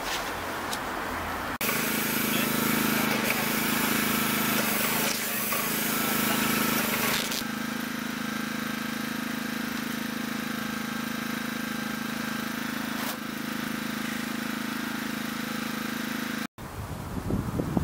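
Road-marking paint spraying over a steady machine hum. For several seconds a loud hiss of spraying sits on top of the hum, then the hum runs on evenly until it cuts off suddenly near the end.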